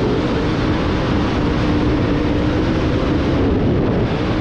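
Dirt track race car's engine running at a steady speed, heard from inside the cockpit under heavy wind and chassis noise.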